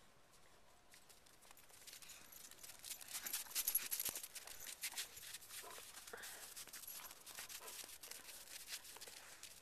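A dog moving through snow right at the microphone: a faint crackling rustle and crunching that starts about two seconds in and is loudest around three to four seconds.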